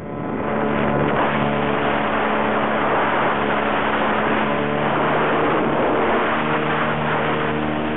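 Background music with long held notes over a loud, steady rushing noise, the airflow of flight.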